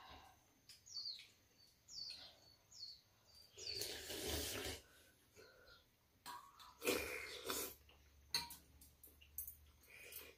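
People slurping soup from spoons: a run of short slurps, then longer, louder slurps about four and seven seconds in, with a few light clicks of metal spoons against the bowls.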